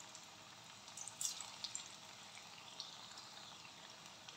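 Cauliflower pakoras deep-frying in hot oil: a faint, steady sizzle with a few crackling pops, the most around a second in.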